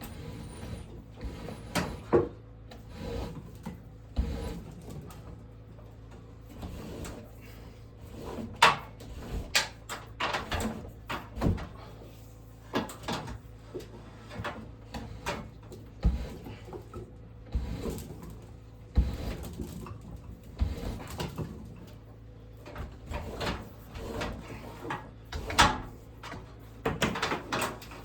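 Irregular knocks and clicks, some sharp and loud, scattered unevenly throughout over a low steady background.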